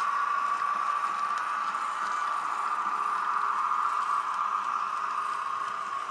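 H0-scale model of an SNCV ART300 tram running along the track with its freight wagons, giving a steady, fairly high whirring hum that eases slightly as it pulls away.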